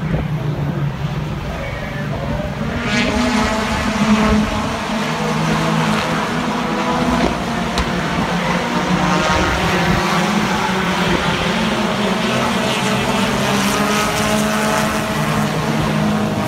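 Hobby stock race cars running laps on an oval track: a loud, continuous engine drone whose pitch shifts as the cars go round.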